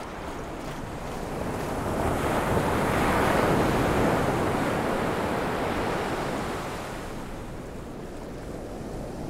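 Ocean surf: a wave rushing in, swelling about two seconds in, loudest around three to four seconds, then easing back to a steady background wash by about seven seconds.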